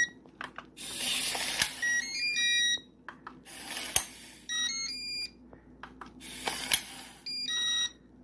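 Prototype electronic door lock cycling: a small gear motor whirs for about a second, then the lock's electronic controller gives a short run of beeps at stepping pitches. The cycle repeats four times, with a few sharp clicks from the mechanism.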